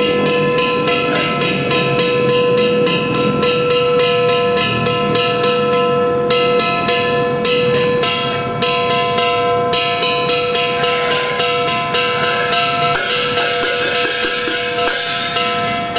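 Ritual percussion music: fast, even strikes of small percussion over a steady held ringing tone.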